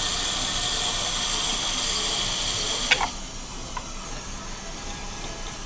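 VEX robotics motors driving the tank-tread conveyor belts of a model assembly line, a steady whir. A sharp click comes about three seconds in, and the whir then drops away to a much quieter background.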